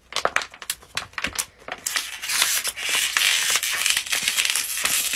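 Plastic water bottle crackling and crinkling as it is wrung by twisting it in both hands. First come separate clicks, then from about two seconds in a dense, continuous crackle.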